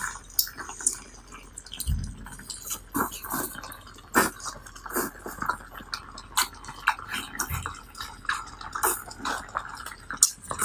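Close-up wet eating sounds of octopus and noodles in sauce: biting, chewing and slurping, heard as many short, moist smacks and clicks at an uneven pace.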